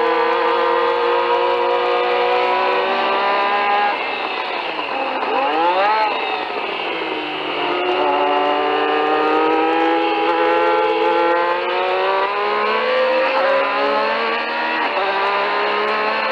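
Onboard sound of a 1983 Renault Formula One car's turbocharged V6 at speed. Engine pitch climbs, then drops about four seconds in as the driver slows and downshifts, with a quick blip near six seconds. It rises again through the gears, with short dips at upshifts near twelve and fifteen seconds.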